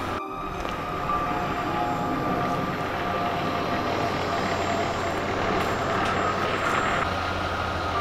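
Steady rumble and hum of road traffic, with no distinct events.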